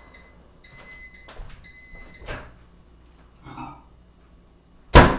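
Microwave oven beeping three times, the end-of-cycle signal that the heating is done, followed by a loud clunk of its door near the end.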